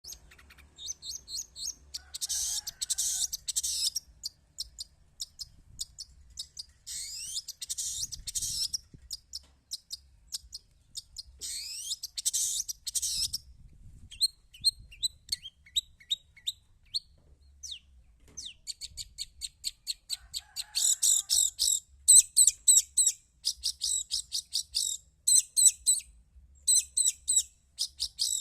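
Long-tailed shrike (pentet/cendet) singing vigorously: rapid strings of high chirps, with dense bursts of twittering about 2, 7 and 12 seconds in. In the second half it switches to fast, sharp repeated notes.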